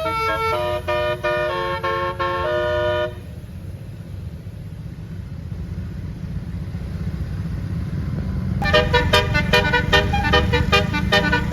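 An 18-note 'telolet' bus horn (basuri type) plays a stepping melody of notes that stops about three seconds in. Steady engine and road noise runs underneath. Near the end the horn comes back with quick, choppy notes.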